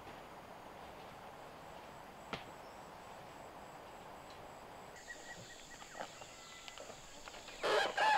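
Faint forest ambience with a high, steady insect drone and a few small knocks. Near the end a sudden loud, rough noise begins.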